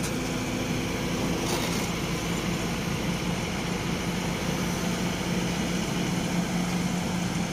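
Diesel engine of a Kobelco SK220 excavator running steadily, with a low, even hum, as the machine tracks up onto a lowboy trailer.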